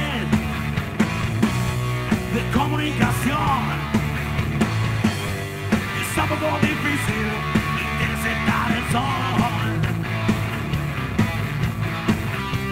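Live rock band playing: electric guitar, bass guitar and a drum kit with a steady beat, with sung vocals coming in and out.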